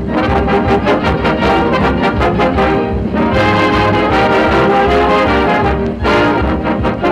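Dance orchestra playing a lively number on an old radio broadcast recording, with trombones and trumpets leading. It starts with short rhythmic chords, moves to held chords about three seconds in, and breaks off briefly near six seconds before the rhythmic playing resumes.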